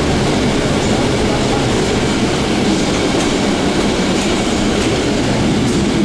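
Steady engine and road rumble inside a moving city bus's cabin.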